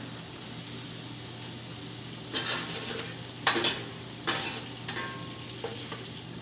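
Bite-sized chicken thigh pieces sizzling steadily in a skillet. In the second half, a spatula scrapes and clatters against the pan several times as the crunchy pieces are scooped out.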